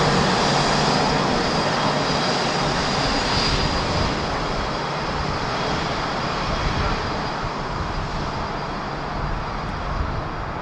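Boeing 787-9 jet engines at taxi power: a steady rush with a thin high whine, fading slowly as the airliner taxis away.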